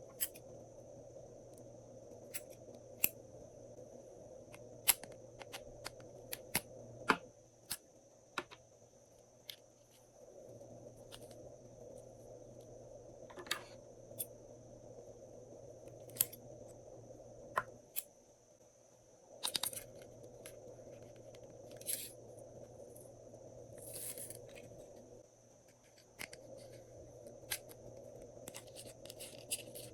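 Hands working glossy slime, giving scattered sharp sticky clicks and a few short crackles over a steady background hum.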